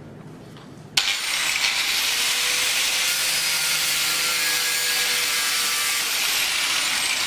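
Angle grinder cutting into an iPhone clamped in a vise: a loud, harsh grinding noise that starts abruptly about a second in and runs steadily.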